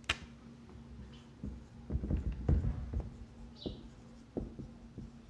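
Marker writing on a wall-mounted whiteboard: a sharp click at the start, then a cluster of dull knocks and taps of the board about two seconds in, with scattered lighter clicks after.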